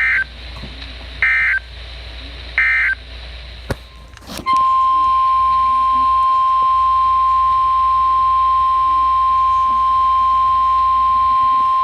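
Three short bursts of SAME digital data tones on NOAA Weather Radio, the end-of-message code closing the previous warning. After a click, the steady 1050 Hz weather radio warning alarm tone sounds for about seven seconds and cuts off suddenly, announcing the next alert.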